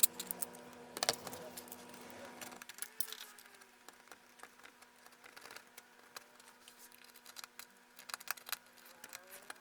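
Small irregular clicks and scrapes of a hand tool working at the damaged corner of an iPad Pro's metal frame, shaving it down so the new screen will sit flat. A louder knock about a second in and a quick run of clicks near the end; a faint low hum stops about two and a half seconds in.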